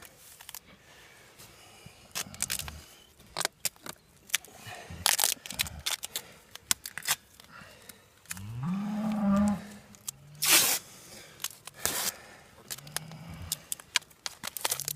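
A calf with a broken leg bawling as the leg is splinted: one longer rising moo about eight seconds in, with shorter, fainter low calls around it. Sharp crackling and rustling handling noises run through it.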